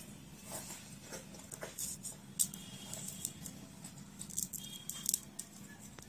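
Faint scattered clicks and scratches as a soldering iron and a wire are worked against the terminal pad of an LED circuit board, over a steady low hum.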